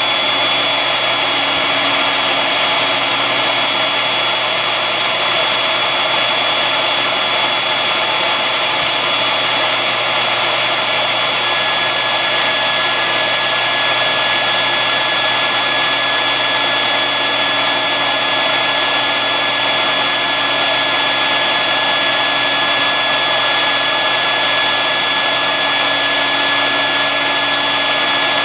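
Electric blower fan running steadily, drawing smoke through a wood gasifier that has just been lit and pushing it out of the flare pipe. A constant airy rush with a steady whine, and a second, lower whine joins about a third of the way through.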